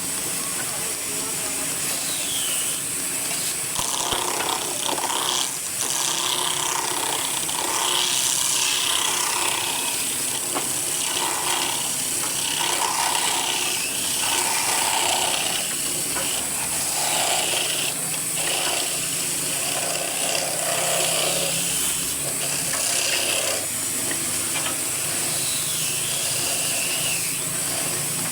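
Woodworking tools working wood, a continuous mix of tool and mechanism noise.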